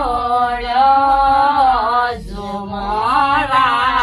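Group of women singing a phag, a traditional Uttarakhand folk song, in long drawn-out notes that glide between pitches, with a short breath about two seconds in.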